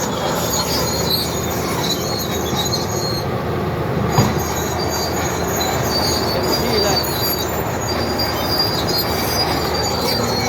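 Komatsu D80A crawler bulldozer working under load: its six-cylinder non-turbocharged diesel engine running steadily while the steel tracks squeal and clank, with one sharp knock about four seconds in.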